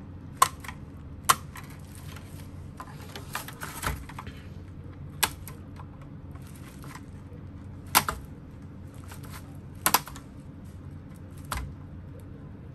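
Sharp, irregular clicks and snaps as a flat-blade screwdriver pries at a TV circuit board's plastic insulating sheet and its clips, working it loose: about half a dozen loud clicks with softer ticks between.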